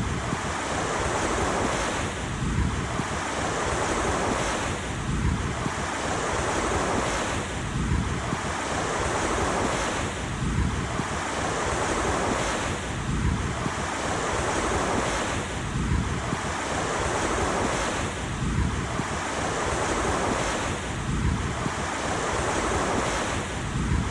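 Ocean surf washing continuously onto a shore, a dense steady rush with a swell that repeats evenly about every two and a half seconds.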